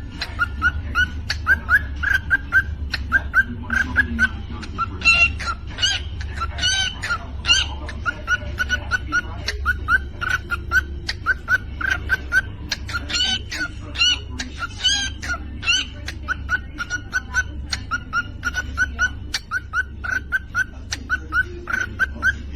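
A bird calling in a fast series of short chirps, about three a second, with louder, fuller calls twice along the way. A steady low hum sits underneath.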